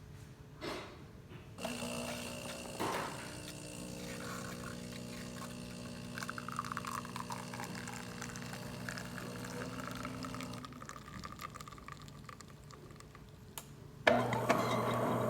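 DeLonghi Magnifica XS super-automatic espresso machine pulling a test shot after its mechano valve was replaced: the pump hums steadily while espresso pours into the cup, then stops about ten seconds in. Near the end a louder machine hum starts suddenly.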